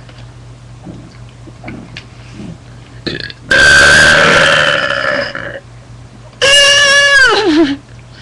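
Girls burping loudly: two long burps. The first lasts about two seconds and is rough. The second holds a pitch and drops low at its end.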